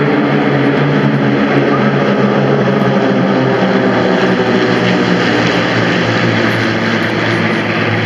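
A large formation of single-engine piston propeller warbirds flying overhead together. Their many engines and propellers merge into one loud, steady drone.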